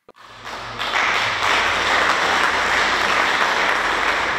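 Congregation applauding: many people clapping, swelling over the first second and then holding steady.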